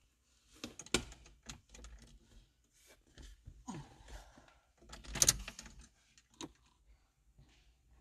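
Irregular clicks, light rattling and rustling of small hard objects being handled, loudest in two clusters about one second in and about five seconds in.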